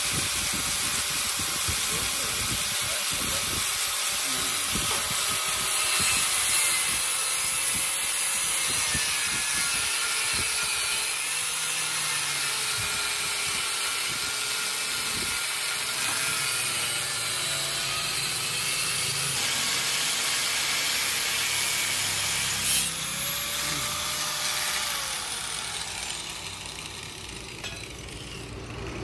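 Handheld angle grinder with an abrasive cut-off disc cutting through a steel gun barrel: a steady, high grinding with the motor's pitch wavering as it is loaded in the cut. Near the end it winds down and goes quieter.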